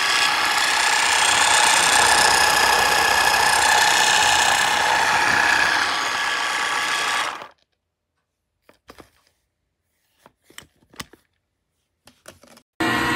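A small electric kitchen-appliance motor runs steadily at speed with a whine, then is switched off abruptly about seven and a half seconds in. A few light clicks and knocks follow, and the motor starts again just before the end.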